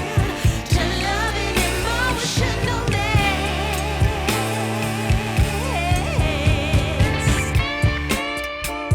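Background pop music: a sung vocal line over bass, guitar and a steady drum beat.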